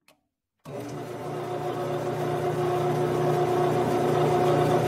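Grizzly G9972Z metal lathe switched on, about half a second in: its motor and spindle, turning the four-jaw chuck, start suddenly and run with a steady hum and whine that grows gradually louder.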